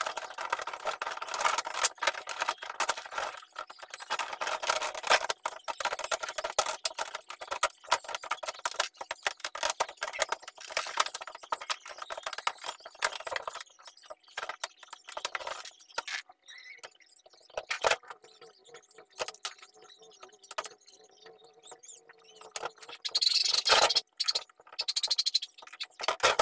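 Rattling, clicking and scraping of a plastic spin-dryer housing and its parts as they are handled and fitted back together. The clicks are dense for the first half, sparser after, with a louder clatter near the end.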